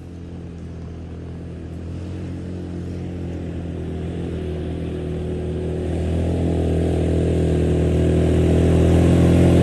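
Off-road vehicle engine running at a steady pitch, growing steadily louder as it approaches.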